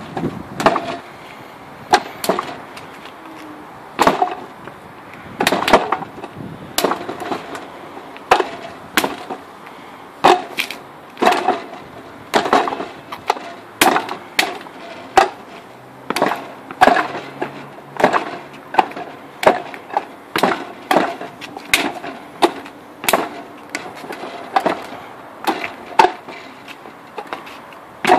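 Wing Chun wooden dummy (mook jong) struck by hands and forearms: sharp wooden clacks as its arms and trunk are hit, coming irregularly at about one or two a second, sometimes in quick pairs or short runs.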